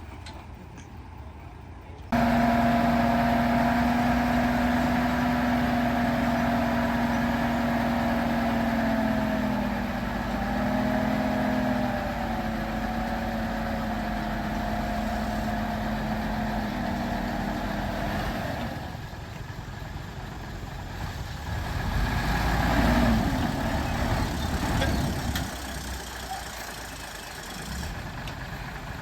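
Diesel engine of heavy earthmoving machinery running steadily, starting abruptly about two seconds in, its pitch dipping briefly under load around ten seconds in. In the last third the engine note becomes rougher and less steady, with a louder stretch.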